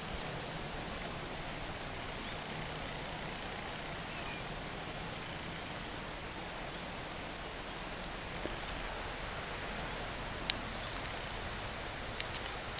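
Steady outdoor background noise with a faint, even high-pitched tone over it, and a few light clicks near the end.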